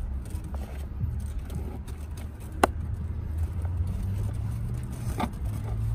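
Vehicle engine running with a steady low hum. Two sharp clicks, about two and a half seconds apart, come from the lower-anchor strap's metal hook being worked against the plastic car seat base as it is threaded through.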